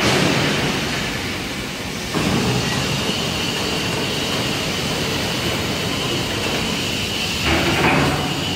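Steady machinery din of a steel-fabrication workshop: a broad rumble with a thin, steady high whine over it, growing louder about two seconds in and again briefly near the end.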